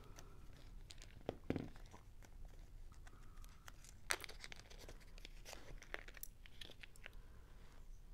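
Faint handling noises: small clear plastic bags crinkling and small Lego pieces clicking as they are picked up and set down on paper, with a dull bump about a second and a half in and a sharp click about four seconds in.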